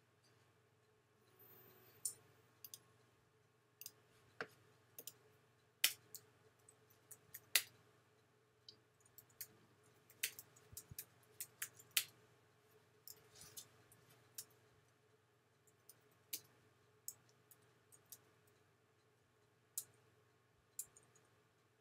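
Sparse, irregular clicks of computer keyboard keys and a mouse being pressed, a key or two a second at most, over a faint steady hum.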